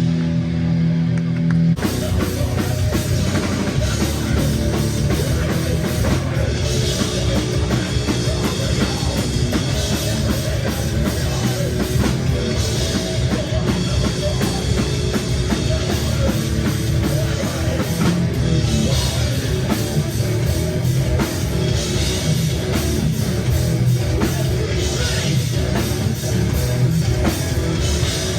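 Live band playing loud, heavy rock music on drum kit and guitars. A held chord rings for the first second or so, then the full band comes in with heavy drumming and crashing cymbals.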